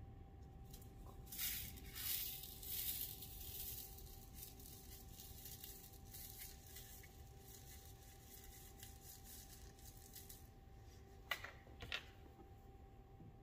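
Coarse glass frit being handled: a plastic zip-top bag rustles and small glass pieces rattle for a few seconds about a second in, then fainter clinks as pieces are set into the plaster mold. Two sharp clicks come a little before the end.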